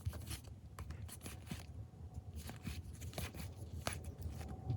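Trading cards handled and flipped through by hand: faint, scattered clicks and short scrapes of card stock sliding against card stock.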